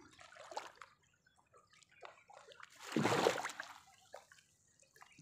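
Wet nylon fishing net being hauled hand over hand out of the water, with water dripping and splattering off it and one louder splash about three seconds in.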